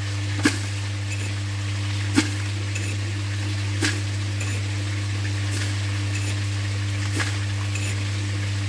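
A steady low hum under an even hiss, with four sharp knocks spaced one to a few seconds apart.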